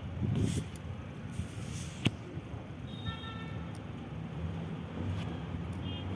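Small-engine carburetor parts handled by hand, with one sharp click about two seconds in, over a steady low outdoor rumble.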